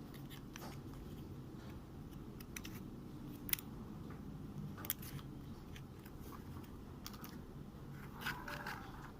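Scattered small sharp clicks and a brief scrape near the end, from plastic toys being handled, over a low steady background hum.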